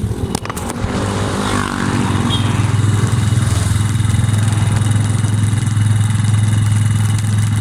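Motorcycle engine running under way, growing louder over the first few seconds and then holding steady. A few sharp clicks come about half a second in.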